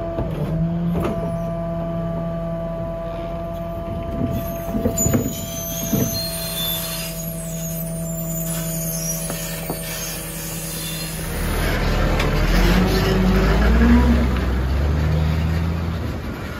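Garwood rear-loader garbage truck running a compaction cycle: a steady engine and hydraulic-pump hum with a few knocks from the packer blade. About twelve seconds in, a louder engine and hydraulic sound with shifting pitch takes over, then eases off near the end.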